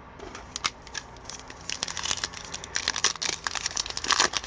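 A foil hockey-card pack wrapper crinkling and tearing as it is opened by hand. The crackling grows busier from about two seconds in.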